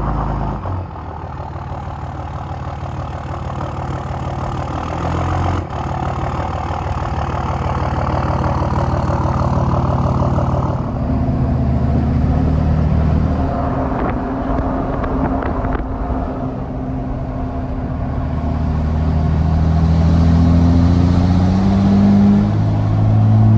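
Cummins turbo-diesel engine of a 3rd Gen Ram pickup running under load, its note shifting in steps and rising and growing louder near the end as it accelerates.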